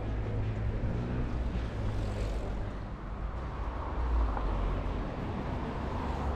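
City street traffic: a motor vehicle's engine running with a low, steady hum, then a broader rush of passing traffic in the second half.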